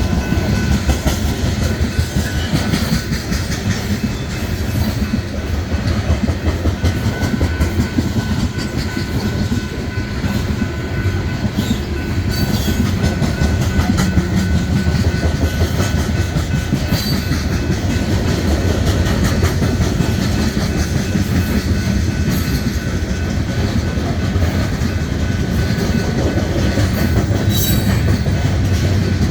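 Train running on the rails, a loud, steady rumble of wheels and cars with faint steady tones above it.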